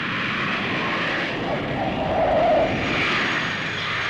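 Jet engines of a Boeing 747 airliner coming in low to land: a continuous rushing engine noise that swells to its loudest about halfway through, then eases a little.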